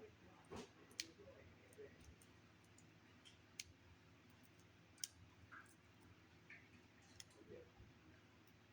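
Faint, scattered clicks and crackles of plastic wrapping being picked and pulled at on a pack of trading cards, with a few sharper clicks about a second in and again around three and a half and five seconds.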